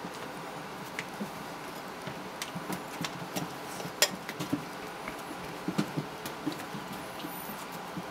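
Four-week-old Havanese puppies scuffling and scrabbling as they wrestle on puppy pads, making scattered light taps, scratches and clicks. The sharpest click comes about four seconds in, and a small cluster follows a couple of seconds later.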